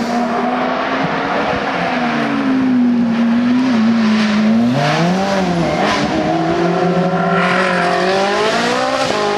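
Hill-climb race car engine accelerating hard, its pitch holding and then climbing in steps, with quick drops at the gear changes about five seconds in and again near the end.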